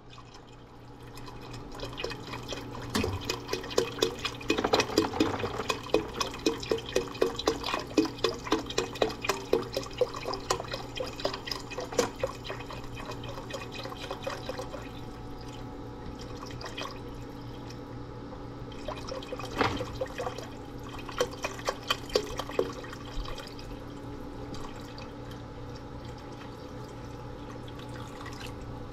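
Chicken stock poured from a carton spout into a stainless steel stockpot of broth, glugging and splashing. For about ten seconds it comes in regular glugs, two or three a second, then settles into a steadier, quieter pour with a couple of louder splashes.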